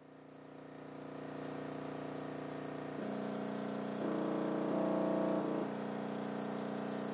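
Crossfire C3 12-inch subwoofer playing a 30 Hz test tone, heard as a steady buzzing drone with its distortion overtones. It fades in over the first second or so, grows louder in steps around three to five seconds in, then eases back. At this low frequency the subwoofer generator drives the small AC motor only poorly.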